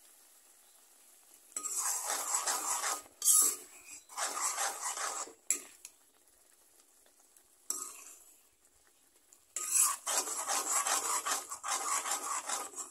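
A long metal ladle stirring and scraping through a wet curry of sorrel leaves and fish in a metal wok, in several bursts of a second or more, with a sharp clink a little over three seconds in.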